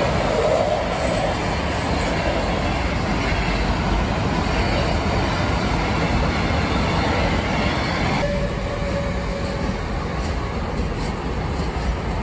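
Steady rolling noise from the wagons of a long intermodal freight train passing on the line, carrying semi-trailers and containers, with a brief wheel squeal near the start. About eight seconds in, the rolling sound eases slightly.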